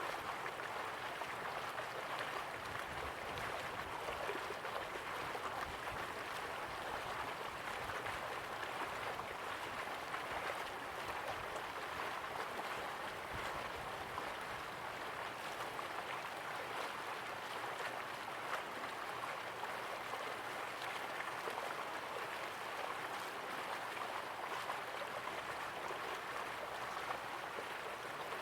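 River water flowing steadily, a continuous even rush with no breaks or separate splashes.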